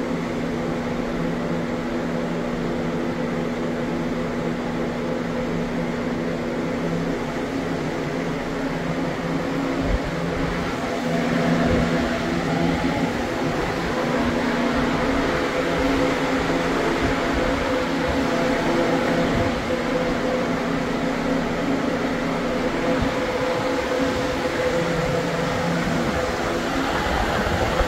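Steady hum of a bee wintering room, the wintering colonies and the room's ventilation fans together, with several held tones and a little louder about eleven seconds in as the hives are approached. A few soft low bumps around ten to twelve seconds in.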